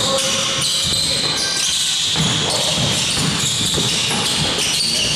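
Basketball play on an indoor court: the ball bouncing on the floor against a steady background of hall noise and voices.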